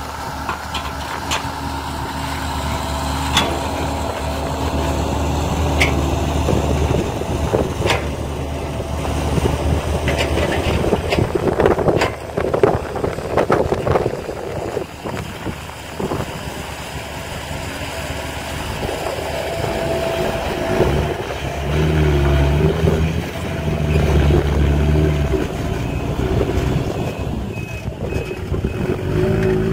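Diesel dump truck engines running, with a loaded truck pulling away across the field and its engine working harder about two-thirds of the way through. Several sharp metallic clanks sound in the first half.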